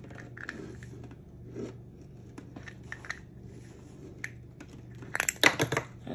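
Small objects handled on a cluttered work table: scattered light clicks and taps over a faint low hum, then a quick burst of sharp clicks and crackles about five seconds in.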